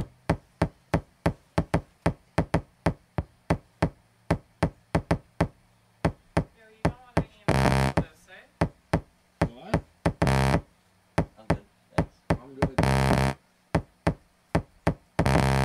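Quick, unevenly spaced clicks of Pyrex glass dishes being tapped together, about three or four a second. They are broken three times by short blocks of a steady drone that cut in and out abruptly, and the drone comes in to stay near the end.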